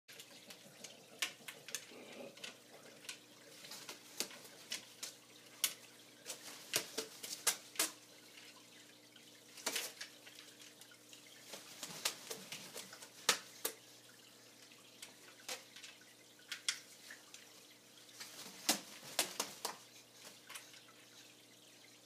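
Blue-and-gold macaw bathing in an aquarium's open top, beating its wet wings: irregular splashes and drips of water. A faint steady hum runs underneath.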